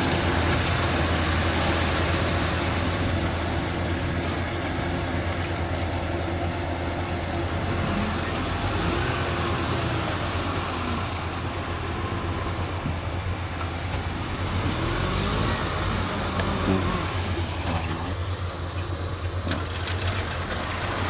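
Kubota DC-105X combine harvester's diesel engine running with a steady low drone.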